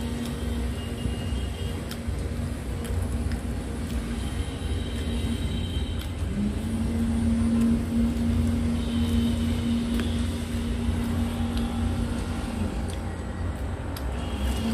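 Steady mechanical rumble with a droning hum that steps up in pitch partway through.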